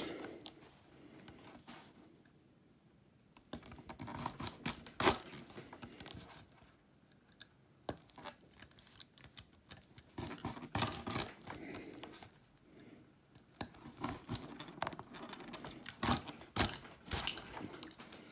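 Stanley knife blade cutting up through an old cork fishing-rod handle, scoring it so the cork can be stripped off the blank: several bouts of crackly scraping with a few sharp clicks, and short pauses between the cuts.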